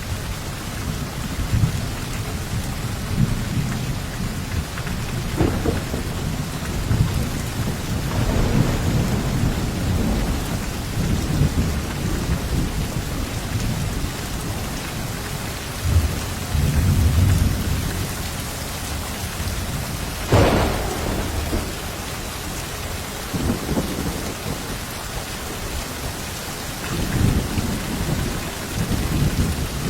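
Steady heavy rain with low rumbles of thunder rolling in and out, and one sharper thunderclap about two-thirds of the way through.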